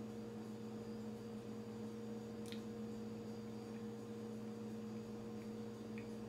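Steady electrical hum, with a faint click about two and a half seconds in.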